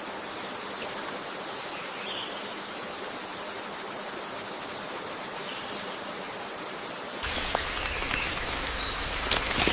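Steady high-pitched insect chorus droning in the forest. About seven seconds in the sound changes abruptly, as at an edit, to a similar insect drone over a low rumble, with a few sharp clicks near the end.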